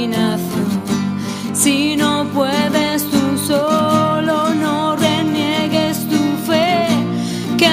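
Music: a song's instrumental passage, with strummed guitar accompaniment under a wavering melody line and no sung words.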